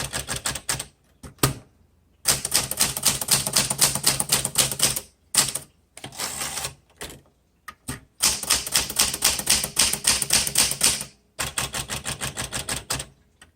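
A 1960s Smith Corona Galaxie all-manual typewriter being typed on: runs of rapid key strikes with short pauses between them.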